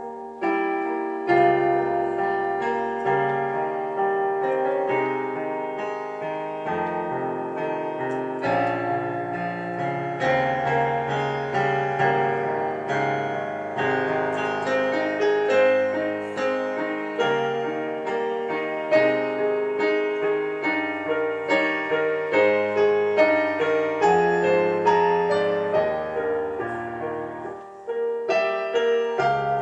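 Piano music being played, a continuous run of struck notes and chords with a short dip in loudness near the end.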